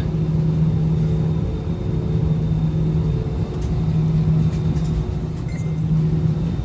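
Steady low drone of an airliner cabin with the aircraft's engines running, a constant hum under a rumbling noise.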